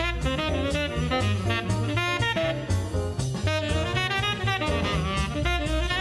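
Vintage small-group jazz recording: a saxophone plays a busy melodic line over a stepping bass line and drums.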